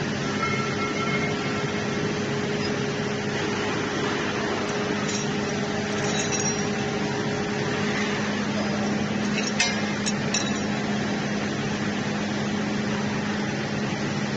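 Steady mechanical hum and noise of workshop machinery, with a few light metal clicks about six and ten seconds in as bent steel wire pieces are handled.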